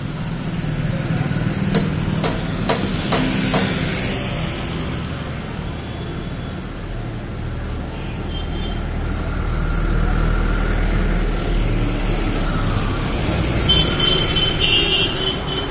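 Steady low rumble of a motor vehicle engine, with a few sharp clicks between two and four seconds in and a short high-pitched sound near the end.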